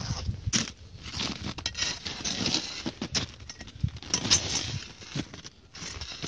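Irregular crunching scrapes and sharp knocks of a climber's ice axe and boots biting into icy snow on a steep slope.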